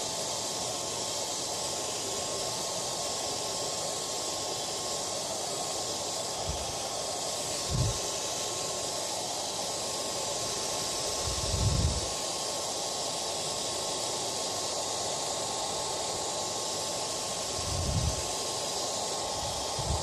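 Hair dryer running steadily: an even rushing hiss of blown air with a faint steady whine from the motor. A few brief, dull low thumps are scattered through it.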